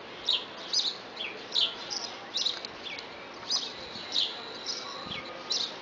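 House sparrow chirping: short, sharp chirps about twice a second, each sweeping down in pitch. A thin steady whistle is held for a second or so in the middle.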